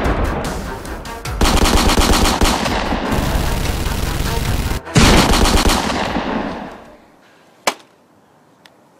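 Machine-gun fire sound effect: long bursts of rapid automatic gunfire that fade away about seven seconds in. A single sharp click follows.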